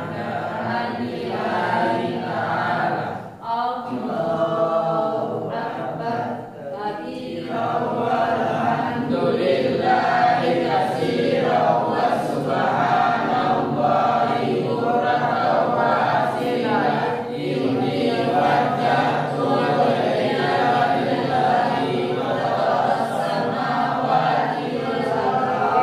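Many voices of a seated group of students reciting Arabic prayer (shalat) readings aloud in unison, a chant-like flow. There is a short break about three and a half seconds in and another near seven seconds.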